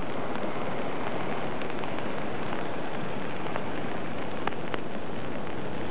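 Steady hiss of rain falling, with the odd faint tick of a single drop.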